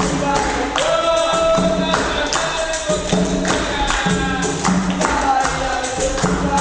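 Capoeira music: voices singing over a steady beat of hand percussion, with the jingles of a pandeiro (tambourine-frame drum).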